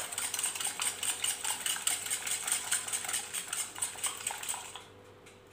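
Eggs being beaten in a bowl: a utensil clicking fast and evenly against the bowl, about seven strokes a second, stopping near the end.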